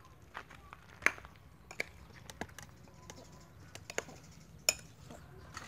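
Metal spoon clinking against a glass bowl while mixing sliced beef in its marinade: several sharp, separate clicks at uneven intervals, with soft wet stirring between them.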